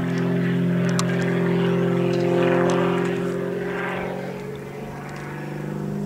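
Propeller-driven aerobatic airplane engine droning overhead in a steady, even tone. It swells to its loudest midway and then fades a little as the plane flies a figure.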